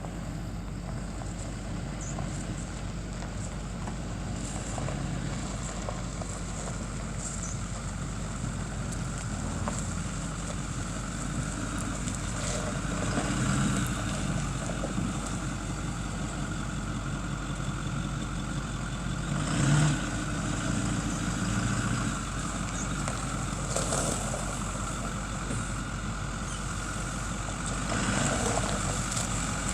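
2009 Ford F-250 pickup truck's engine idling steadily, with a few brief louder swells, the largest about two-thirds of the way through.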